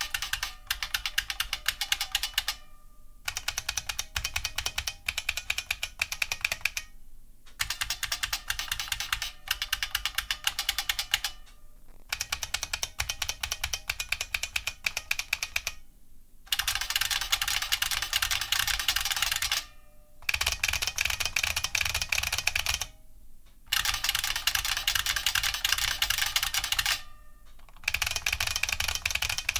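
Fast typing on an IBM Model F-style capacitive buckling-spring keyboard: a dense, loud clatter of clicky key strokes with the springs' twangy ring, in bursts of a few seconds with short pauses between. The strokes become louder and brighter from about halfway.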